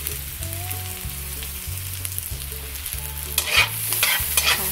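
Minced garlic sizzling in a little hot oil in a wok. From about three and a half seconds in, a metal spatula scrapes and stirs it against the pan in quick strokes.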